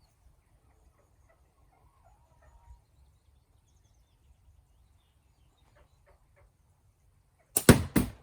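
A faint low rumble, then near the end two loud, sharp bangs about a third of a second apart: a slingshot shot striking a homemade exploding target built around a lighter.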